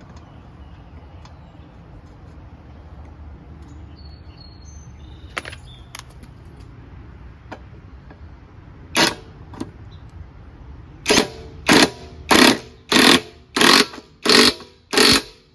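Cordless impact wrench run in short bursts on a push-mower engine's flywheel nut: one burst about nine seconds in, then seven quick ones in a row near the end as the nut is driven down onto the crankshaft. A few light clicks of parts being handled come before.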